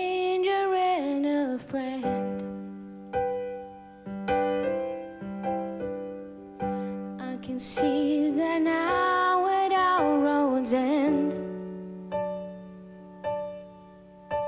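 A slow ballad: a woman sings two phrases, one at the start and one from about eight seconds in, over piano chords. Between the phrases the chords are struck and left to ring out and fade.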